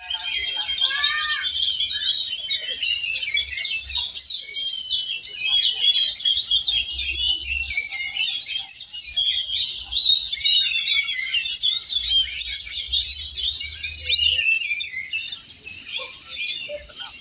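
Many caged oriental magpie-robins singing at once in a contest, a dense, continuous tangle of loud chirps, whistles and warbled phrases that overlap without pause, easing off a little near the end.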